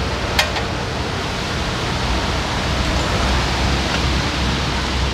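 Steady rushing noise with one sharp click about half a second in, as the handbrake shoe springs of a BMW E36 rear brake are worked into place.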